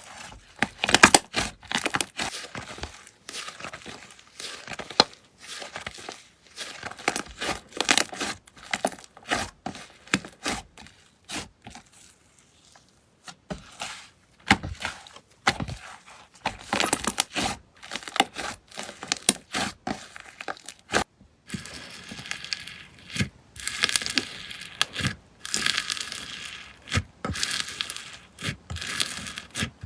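Slime being squished and stretched by hand, giving dense crackling, popping clicks, with a quieter lull about halfway through.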